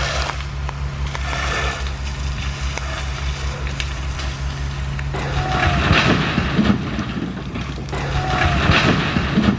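Steady low drone of a fire engine's motor running, as it does to drive the pump feeding a hose on a burning house. About five seconds in, a rougher rushing noise rises over it.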